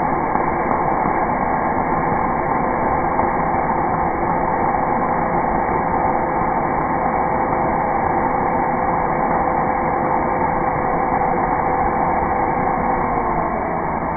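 Cordless drill motor running continuously under load as it bores into a wooden drawer rail. Its steady whine drops slightly in pitch near the end.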